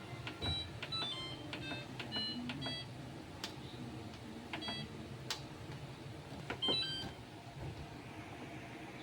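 Short electronic beeps of several different pitches, scattered irregularly, with a few sharp clicks over a low background hum.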